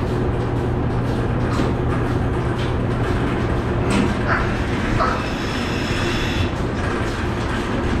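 Milking machine running in a goat parlour: the steady drone and low hum of its vacuum system, with scattered clicks and a brief high whine about five seconds in.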